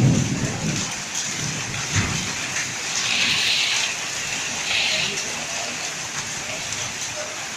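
Heavy rain mixed with hail falling in strong wind: a steady hiss that swells twice in the middle, with low thuds near the start.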